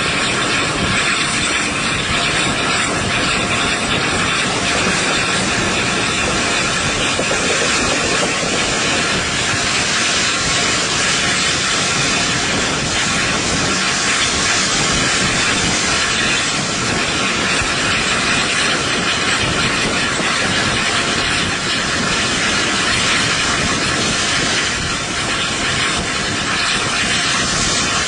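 A train hauled by the A1 Pacific steam locomotive Tornado, running at speed and heard from an open carriage window: a loud, steady rush of wind, wheel and rail noise, mixed with the engine's steam hiss.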